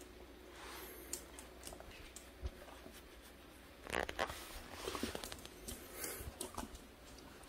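Soft rustling of a hand stroking a Pungsan dog's coat, with light clicks of the dog's claws on a wooden floor, busiest about four to six seconds in.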